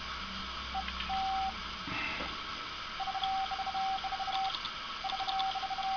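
Morse code sent on a Robley and Tough Piergraph No. 2 semi-automatic 'jigger' key with its designed weight fitted, heard as a single-pitch sidetone beeping: a short group about a second in, then two longer runs of dashes mixed with quick strings of dots from the key's vibrating arm. Light ticks sound in time with the dots.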